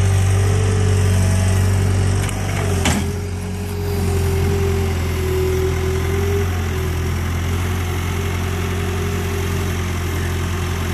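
Caterpillar 236 skid-steer loader's diesel engine running steadily under load as it pushes dirt with its bucket. A steady higher tone sits over the engine for the first six seconds or so, and there is a single knock about three seconds in.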